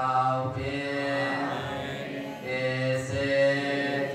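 A Buddhist monk's single voice chanting a sermon in long, held melodic notes, the pitch stepping from phrase to phrase, with a short pause for breath just past halfway.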